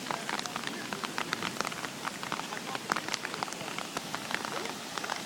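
Heavy rain: a steady hiss of rainfall with many separate drops pattering sharply on an umbrella held close over the microphone.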